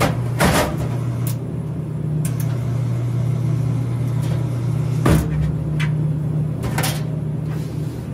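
Open soda vending machine humming steadily and low, with a series of sharp clicks and knocks as the column vend motors and their switches are worked by hand during a test cycle. The loudest knock comes about five seconds in.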